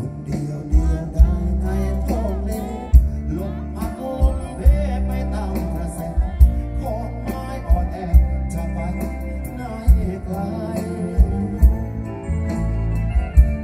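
A male singer singing a Thai song live through a concert PA, backed by acoustic guitar, bass and a steady drum beat.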